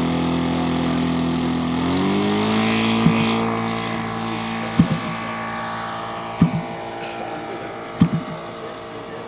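RC model airplane engine running steadily, throttling up about two seconds in, then slowly fading as the plane moves away. Several short sharp knocks come about every second and a half in the second half.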